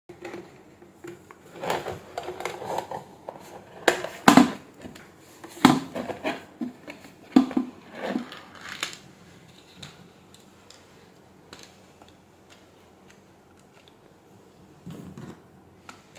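Clicks, taps and light clatter of an electric kettle and its parts being handled during repair work, busiest over the first nine seconds. After that it goes mostly quiet, with a few small ticks and a brief soft rustle near the end.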